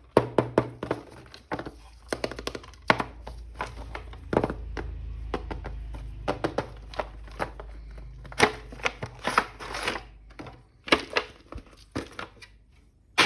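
Plastic packaging crinkling and tearing, with many sharp clicks and taps, as a toy action figure is unwrapped and handled.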